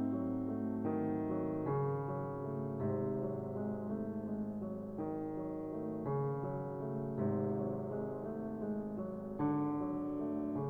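Slow, gentle piano music, chords and notes changing about once a second.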